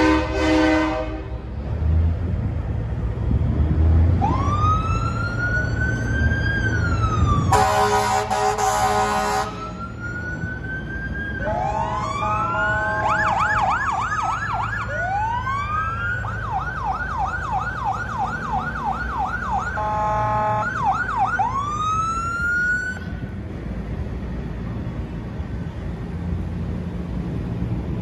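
Fire engine sirens: slow rising-and-falling wails, then a fast yelp of about four sweeps a second, which stops about 23 seconds in. Air horns blast over them: once near the start, once for about two seconds some eight seconds in, and briefly about twenty seconds in. Parade trucks' diesel engines rumble low underneath.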